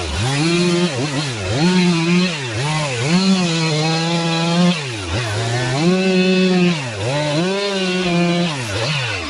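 Stihl MS 362 chainsaw, a 59cc carbureted two-stroke, cutting firewood: the engine note repeatedly sags as the chain loads up in the wood and climbs back to full revs, about eight times, then drops off near the end.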